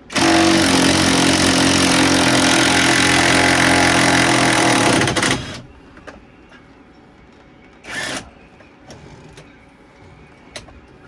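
Cordless battery power tool running hard on an engine mount bolt for about five and a half seconds and then stopping sharply, with one short burst of the tool about eight seconds in.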